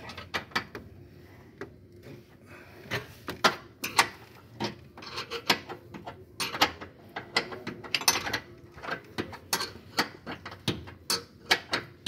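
Hand wrench working the steel bolts of an engine mounting bracket: irregular metallic clicks, clinks and knocks, several a second, some sharper than others.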